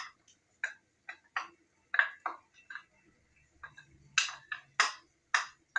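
About a dozen light, irregular clicks and taps from kitchen utensils or cookware.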